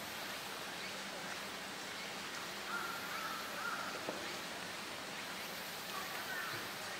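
Steady outdoor background hiss, with a faint thin call lasting about a second, about three seconds in.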